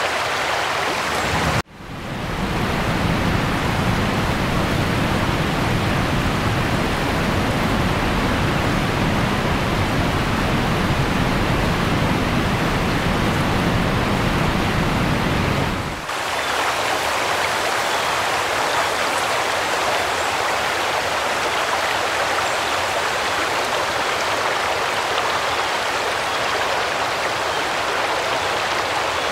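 Flood water rushing across a road as a steady noise that cuts out for a moment about two seconds in. From there until about sixteen seconds a deep rumble runs underneath it, then drops away abruptly, leaving the water alone.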